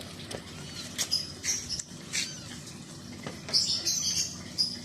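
Newborn kittens mewing in high, thin squeaks, a series of short calls with a cluster of them about three and a half seconds in.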